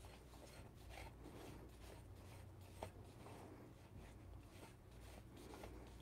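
Near silence: faint handling noise of hands on a DF83 coffee grinder, with one small click a little under three seconds in.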